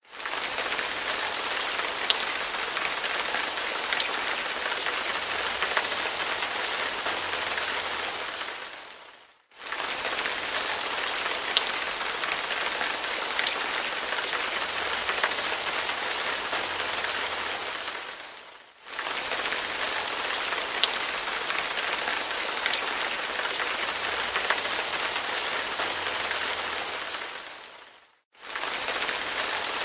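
Steady rain hiss with scattered faint drop ticks, fading out and back in about every nine seconds.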